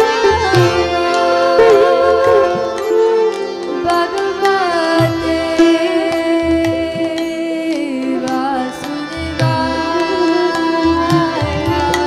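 Kirtan music: a harmonium holds steady chords under a sitar and a hand drum beating low strokes, with voices gliding through long sung notes.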